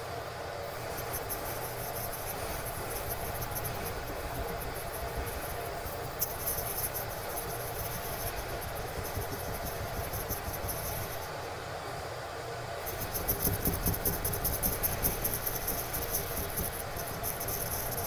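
A cloth rubbed quickly back and forth over a fiberglass bathtub's gelcoat, a fast scratchy swishing. It comes in two spells with a short pause about eleven seconds in, and the second spell is louder.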